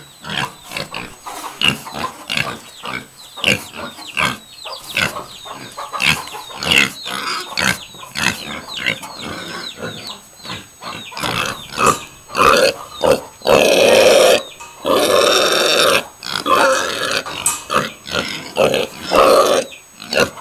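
Pigs grunting in short, rapid calls, with two louder, longer cries about two-thirds of the way through.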